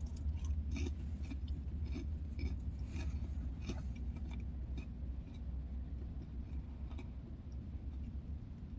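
Close-up chewing with many small crunching clicks, thickest in the first half, over a steady low hum.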